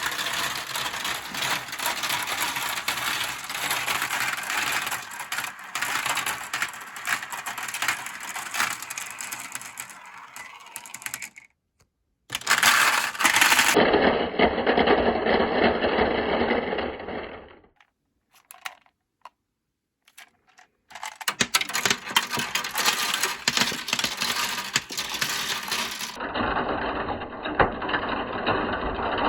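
Marbles rolling and clattering down a toy marble-run slope, a dense stream of clicks and rattles that twice drops out briefly to silence.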